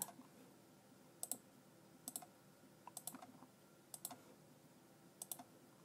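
Computer mouse button clicking, about five or six quiet clicks roughly a second apart, each a quick press-and-release pair, as sketch corners are selected one by one.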